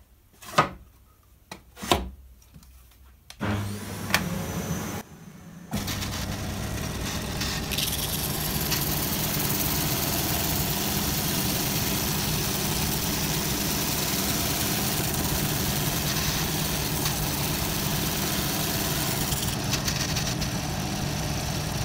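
Two clicks as the machine is switched on at the socket, then a homemade belt sander with dust extraction starts and runs steadily. From about six seconds in it is sanding the rounded corner of a laminated furniture-board door back to a masking-tape line.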